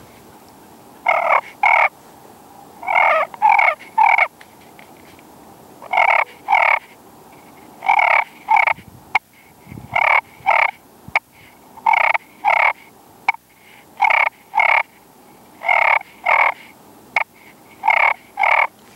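Slate-over-glass friction turkey pot call (a 2.5-inch walnut pot) worked with a cedar striker, giving turkey clucks and purrs. The sound comes as short notes in groups of two or three, with single sharp clicks between the groups.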